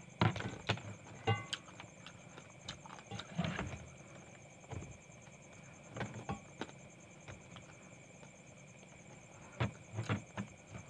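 Close-up eating sounds: cooked talangka crab being chewed and its shell crunched and cracked, with lip smacks, in scattered short bursts with quiet gaps between.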